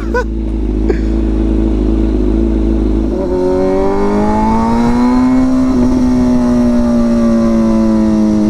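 Straight-piped Kawasaki ZX-6R inline-four engine running loud under way. About three seconds in, its pitch rises as the bike accelerates, then holds and slowly eases off.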